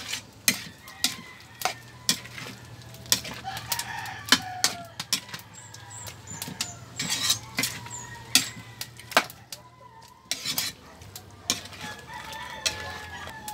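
A metal spatula stirring chunks of pork in an aluminium wok, scraping and clinking against the pan in a run of irregular sharp knocks.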